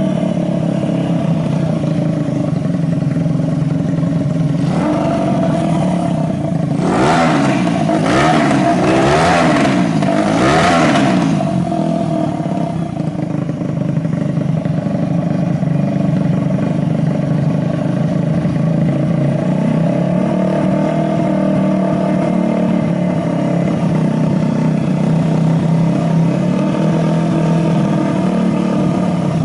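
Honda Ape 50's single-cylinder four-stroke engine, bored up to 80cc with a Takegawa kit, idling and revved several times between about five and eleven seconds in, then settling back to a steady idle. The seller describes it as running with no abnormal noises.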